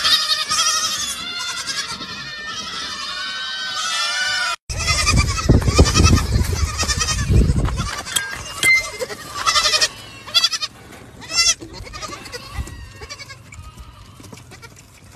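Goat kids bleating, many high wavering calls overlapping at once. After about four and a half seconds this cuts off suddenly to a low rumble for a few seconds, followed by a handful of single bleats.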